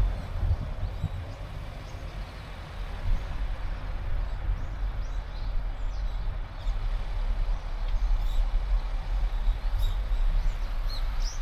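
Car driving, a steady low rumble of engine and road noise, with a few short, high chirps in the second half.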